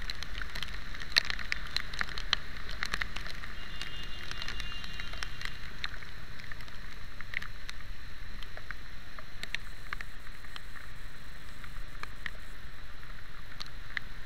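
Rain drops ticking irregularly against a vehicle-mounted camera, over a steady hiss and low rumble of wind and tyres on a wet road while riding in the rain.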